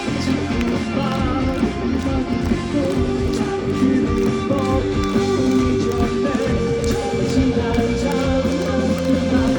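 Rock band playing live, with electric guitars holding long sustained notes over bass and drums.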